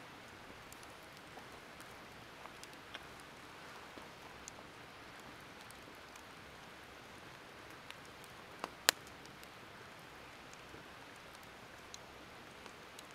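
Wood campfire crackling faintly: a soft steady hiss with scattered small snaps and pops, and one sharp pop about nine seconds in.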